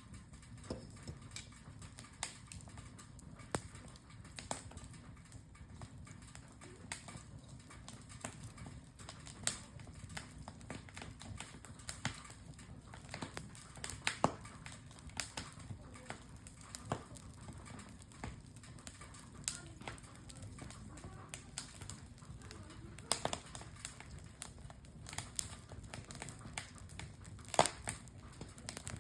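Wood campfire crackling: irregular sharp pops and snaps over a faint low, steady rush, with a few louder snaps near the end.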